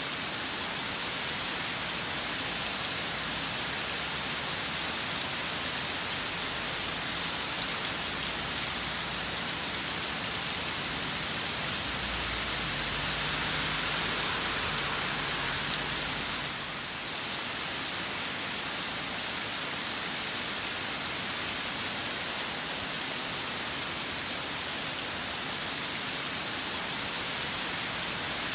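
Rain falling steadily in a storm, an even hiss of drops. About halfway through, a low rumble swells for a few seconds and then fades.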